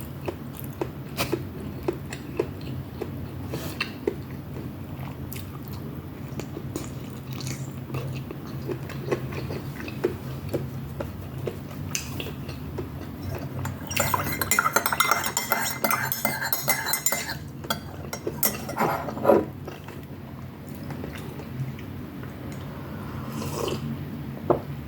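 Cutlery clinking and scraping against a plate during a meal, in many short clicks, with chewing. About two-thirds through there is a few-second spell of louder, busier rattling and scraping.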